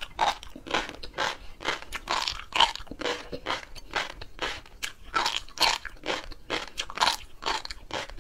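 Close-miked chewing of a mouthful of flying fish roe, the small eggs crunching between the teeth in a quick, even rhythm of bites.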